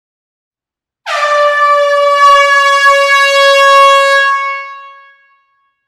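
Air horn sounding one long, steady note that starts about a second in, holds for about three seconds, then fades away.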